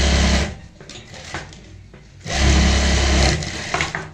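Industrial sewing machine running in two short stitching bursts, about half a second at the start and about a second near the middle, with a quiet pause between.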